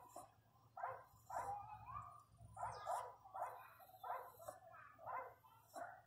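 A pinscher's short, high whimpering yelps, repeated steadily about twice a second.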